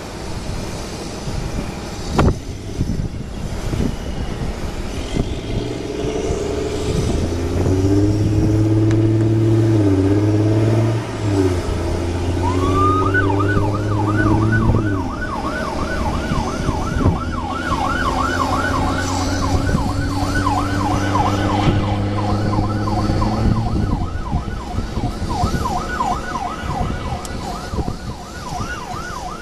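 Emergency vehicle siren, starting about twelve seconds in with a rising wail, then switching to a fast yelp that rises and falls about three times a second. Under it, the low steady drone of an engine runs through most of the middle and fades out a few seconds before the end.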